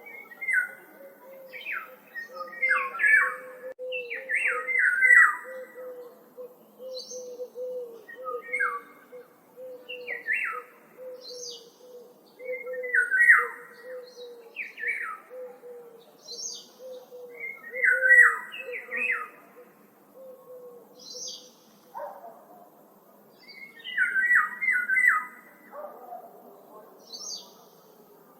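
Several woodland birds singing. One bird repeats a short, loud, warbled song phrase every couple of seconds, mixed with thin high downslurred notes from another, over a steady run of low short notes that stops about three quarters of the way through.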